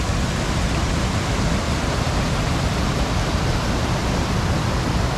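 The River Ure rushing over the stepped rock ledges of a waterfall in a steady, loud roar of falling water.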